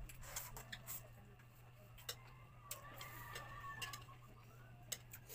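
Close-up eating sounds: scattered sharp clicks of chopsticks against ceramic bowls, with chewing and mouth noises, over a steady low hum.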